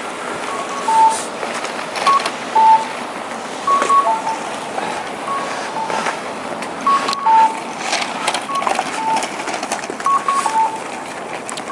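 Audible pedestrian crossing signal beeping a two-note electronic call, a short higher tone followed by a lower one, repeating every second or two to mark the walk phase. Under it runs a steady hiss of street noise with a few clicks.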